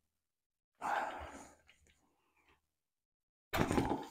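A short breathy exhale about a second in, then sharp metal clinks near the end as a T-handle spark plug wrench is turned on a Ryobi two-stroke trimmer engine to take the plug out.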